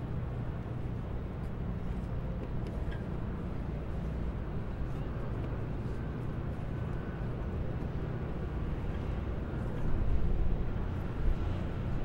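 Car driving, a steady low road and engine rumble, swelling louder about ten seconds in.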